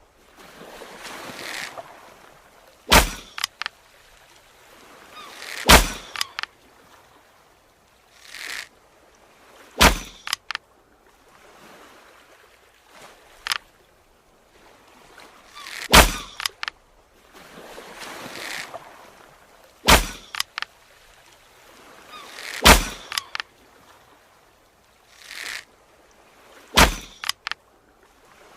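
Bow-and-arrow sound effects: a series of seven sharp cracks spaced a few seconds apart, several led in by a swelling whoosh, with a few fainter clicks between them.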